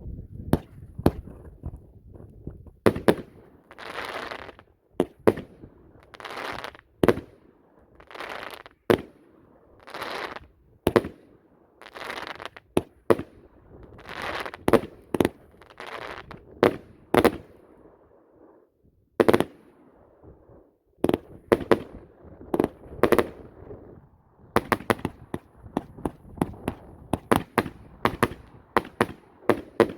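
An 88-shot firework cake firing: a string of sharp bangs, about one a second, many trailed by a brief hiss. The shots come faster and closer together near the end.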